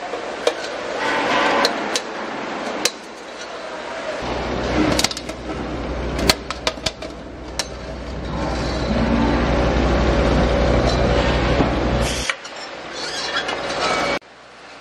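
Metalworking workshop sounds: sharp metal clinks and taps, with a machine's steady hum through the middle that stops abruptly, and several sudden cuts in the background noise.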